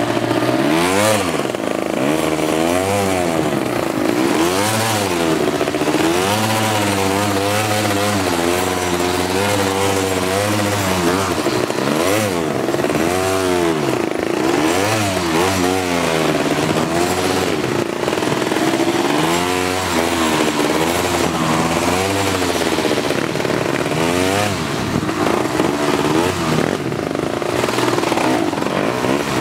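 ATV (four-wheeler) engine riding off-road, revving up and down over and over as the throttle is worked, its pitch rising and falling every second or two.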